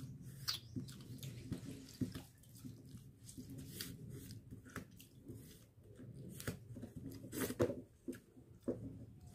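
Fingers mixing and squeezing pakhala, rice soaked in water, in a steel bowl: scattered small wet clicks and splashes, over a low background hum.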